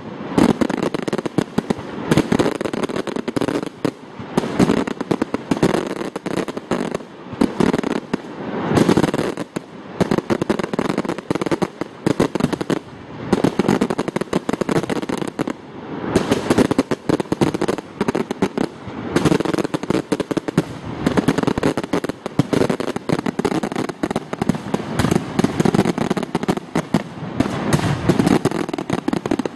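Aerial fireworks display: a dense, continuous run of bangs and crackling shell bursts, swelling and easing in loudness.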